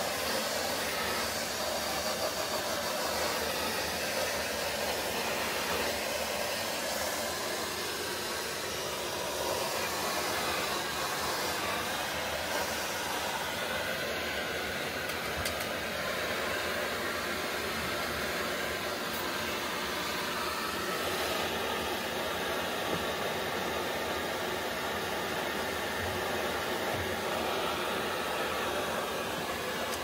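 Vacuum cleaner running steadily, air rushing through its hose and nozzle as the nozzle is moved over a tiled floor.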